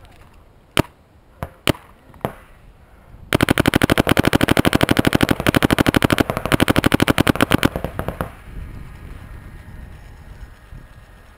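2012 Vanguard Demon electronic paintball marker firing. There are four single shots in the first two seconds or so, then a fast, even string of shots lasting about four seconds before it stops.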